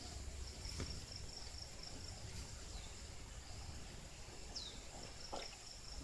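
Steady high-pitched insect trill of forest ambience, broken briefly a couple of seconds in. Two short falling chirps sound over it, with low rumble underneath.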